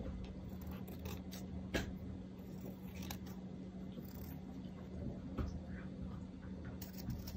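Scissors handled at the tulle and satin ribbon tails of a bow, giving a few soft blade clicks and snips, one about two seconds in and others near the middle and end, over a low steady hum.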